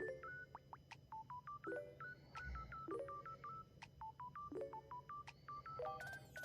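Quiet electronic music: a short phrase of beeping notes that step up and down, looping about every second and a half, over a low steady hum.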